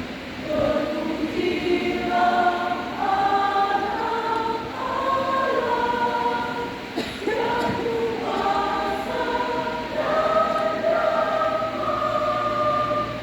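Choir singing a hymn in harmony, holding notes that change every second or so, with a brief break for breath about seven seconds in.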